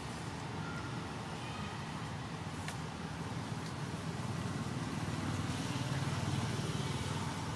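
Steady low background rumble, with a few faint short high-pitched squeaks in the first two seconds and a single faint click.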